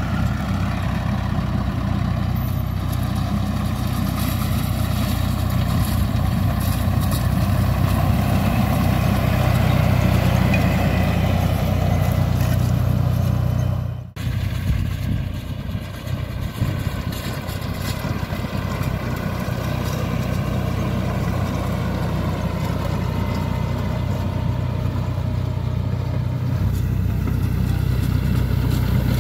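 Fendt 209P tractor engine running steadily under load, with a ROC RT380 belt merger working behind it. The sound dips out briefly about halfway through.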